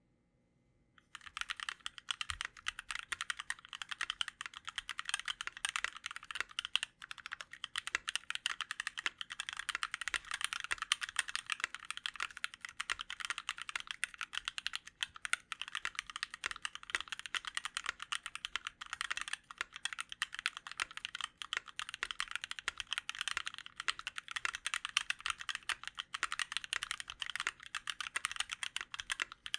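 Continuous fast typing on a custom mechanical keyboard with lubed and filmed H1 switches (70 g springs), an aluminium plate and DSA keycaps: a dense run of keystroke clacks starting about a second in.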